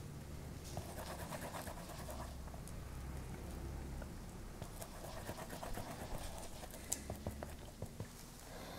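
Faint scratching of a paintbrush mixing paint on a metal palette, with a few light clicks, the sharpest about seven seconds in.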